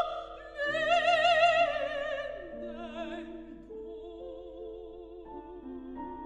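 Operatic soprano singing with a wide vibrato over grand piano accompaniment. The phrase falls in pitch and ends on a quieter, low held note while the piano plays on.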